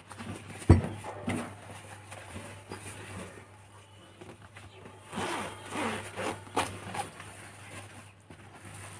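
Zip of a soft fabric carry bag being pulled open in several short scratchy runs, heaviest a little after five seconds in. A single sharp knock comes about a second in.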